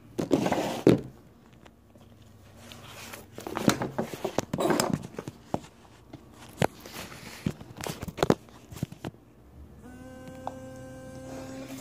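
Handling noise of a phone being moved about, with rustles and scattered clicks and taps. About ten seconds in, a steady buzzing tone starts and runs on: the phone signalling another incoming call.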